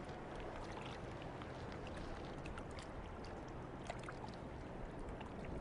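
Faint, steady rush of a river flowing past a stony bank, with a few small ticks scattered through it.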